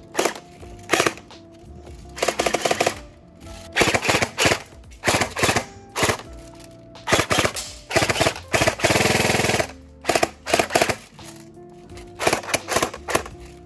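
Airsoft AK-pattern rifle firing: a rapid clatter of short bursts and single shots, with one longer burst of about a second and a half a little past the middle.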